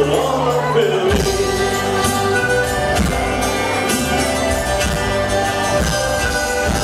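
Live carnival band playing a song on accordion, acoustic guitars, electric guitar and keyboard, with some singing.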